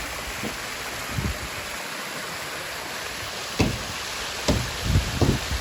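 Water cascading over a newly built stone waterfall into a garden pond: a steady rushing splash. A few short low thumps come in the second half.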